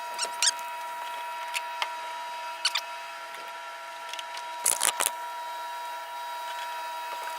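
Steady cabin noise of a Cessna 172 in smooth cruise, broken by scattered sharp clicks, loudest in a quick cluster about five seconds in.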